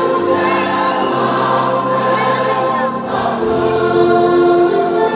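Mixed choir singing a hymn in Fanti in sustained, held chords, with keyboard accompaniment.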